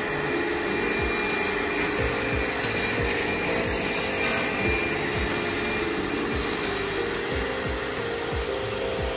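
CNC bridge saw's blade cutting through a thin stone slab: a loud, steady grinding hiss with a few high whining tones above it, easing slightly over the last few seconds.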